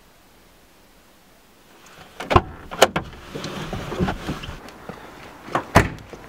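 Car door being opened with two sharp clicks of the latch, then rustling and shuffling as someone gets out, and the door shut with a sharp knock near the end.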